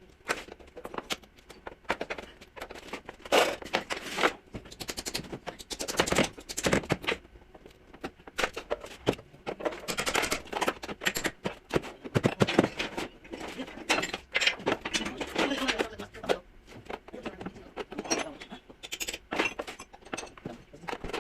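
Irregular knocks, clicks and scraping, with voices in between.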